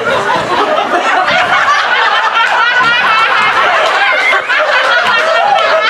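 Audience laughing: many people at once, loud and unbroken.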